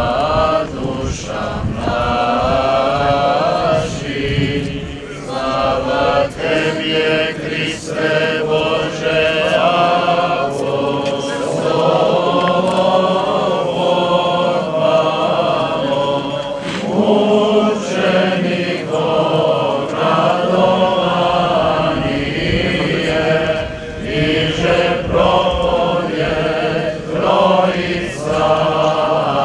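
Orthodox liturgical chant sung by a group of clergy voices, continuous and melodic, with short pauses for breath between phrases.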